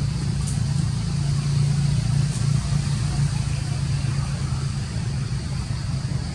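Steady low engine hum, like a motor vehicle idling, with a faint constant high-pitched tone above it.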